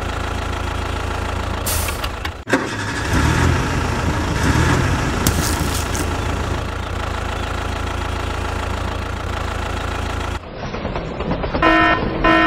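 Tractor engine running steadily, with a sharp knock about two and a half seconds in. The engine cuts off near the end, and a horn sounds in short repeated blasts.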